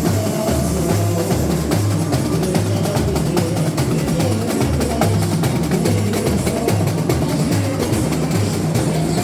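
Samba school drum section (bateria) playing a steady samba rhythm: deep surdo bass drums alternating between a higher and a lower pitch, over a dense patter of snare drums and small percussion.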